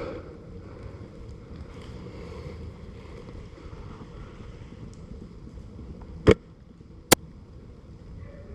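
Wind and rustling on the helmet microphone, then two sharp cracks less than a second apart, the first the louder, typical of the Silverback SRS A2 airsoft sniper rifle firing.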